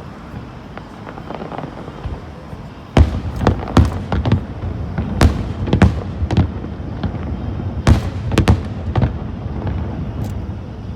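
Aerial fireworks shell bursts: about three seconds of low rumble, then a rapid, irregular string of loud bangs, several a second, with echo trailing after each.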